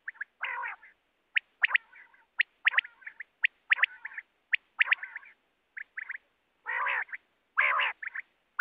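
Common quail calling: quick series of short, sharp, high-pitched call notes, mixed with a few longer, harsher buzzy calls, two of the longest coming near the end.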